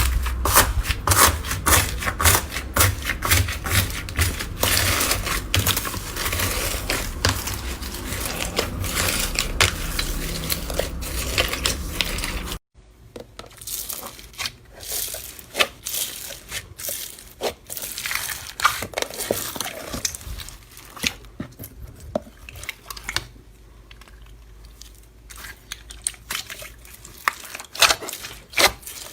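Slime being squeezed and pressed, giving dense crackling and popping clicks. About halfway through it switches abruptly to a quieter stretch with sparser, softer clicks.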